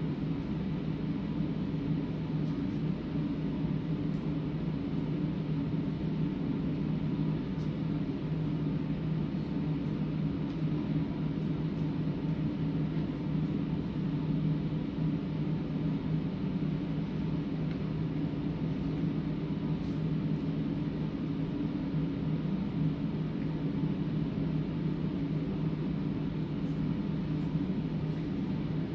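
Room ventilation running with a steady low hum that does not change.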